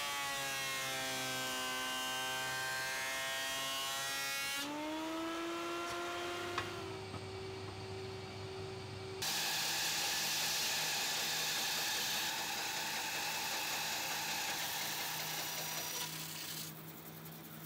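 Benchtop jointer running as an olive-wood board is faced, its motor whine shifting in pitch. About nine seconds in, a bandsaw takes over, running with a steady hum and hiss.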